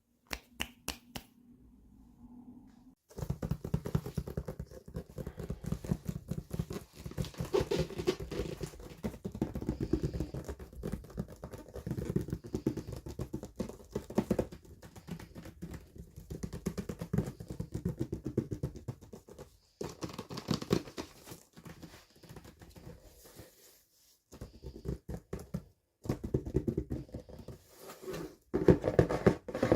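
Toy packaging handled and unwrapped close to the microphone: dense crinkling, rustling and tapping. It begins with a few separate clicks, then runs continuously from about three seconds in, with a few short pauses near the end.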